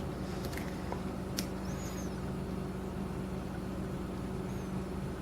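Steady low hum from a running motor or appliance, with a few faint clicks in the first second and a half from lock picks working in a padlock.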